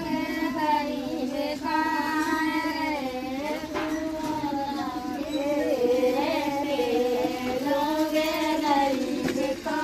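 A high female voice singing a continuous, wavering melody.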